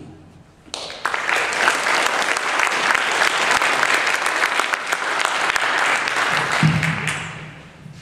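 Theatre audience applauding. The clapping starts about a second in and fades away near the end, with a voice heard briefly over its tail.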